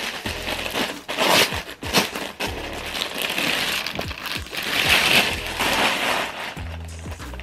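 Plastic packaging and bubble wrap crinkling and rustling as they are handled and crumpled, with a few sharp crackles.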